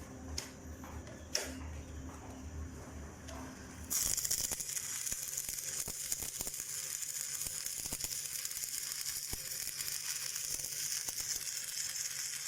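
Stick arc welding on steel: the arc strikes about four seconds in and then crackles and sizzles steadily. Before it, a low mains hum from the welding transformer and a few light taps.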